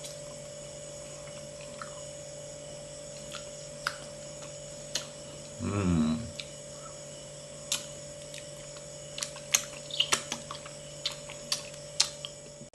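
Quiet eating and handling sounds from a man eating durian: a short voiced 'mm' about six seconds in, then a run of sharp clicks and taps in the last few seconds, over a steady electrical hum.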